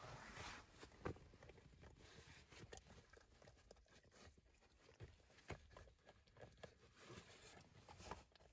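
Faint, scattered soft clicks and smacks of a dog licking and mouthing a rubber Kong treat toy.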